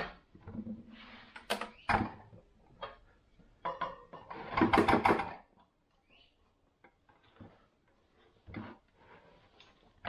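A large screwdriver scraping and clicking against a motorcycle front wheel hub as the wheel-bearing seal is pried out: irregular metal clicks and knocks, with a longer scraping burst about four to five seconds in.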